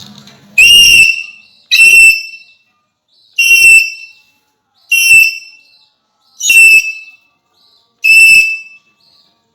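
Alexandrine parakeet whistling: six loud, piercing whistles, each about half a second long and about a second and a half apart. Each note swoops up briefly at the start and then holds its pitch.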